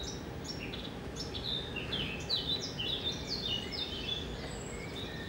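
Small birds chirping: many short, quick chirps that fall in pitch, coming several a second and overlapping, over a steady low hiss.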